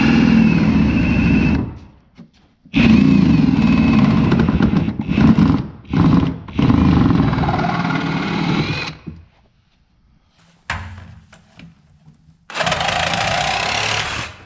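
Milwaukee cordless Sawzall reciprocating saw cutting through a pickup truck's front valance. It runs in three bursts: briefly at the start, a long cut with short dips in the middle, and a short final run near the end, with pauses and a few small clicks between.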